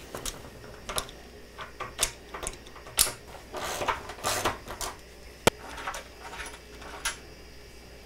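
Vice grips clinking and scraping on the dryer drum roller's nut as it is loosened: scattered metal clicks and short scrapes, with one sharp snap about five and a half seconds in.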